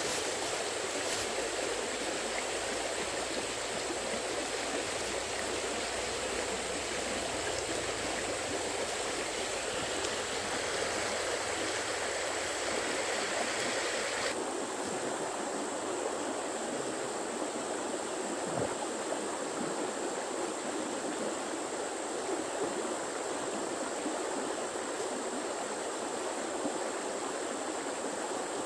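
Steady rushing of running water. About halfway through the sound changes abruptly and the higher hiss drops away, leaving a duller rush.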